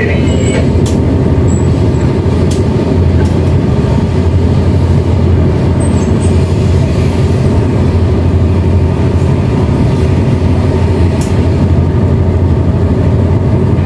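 Tugboat diesel engine running steadily: a loud, unbroken deep drone.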